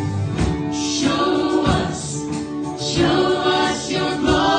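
Live church worship band playing a contemporary worship song: several voices singing together over guitar and bass, with a strong beat about every second and a half.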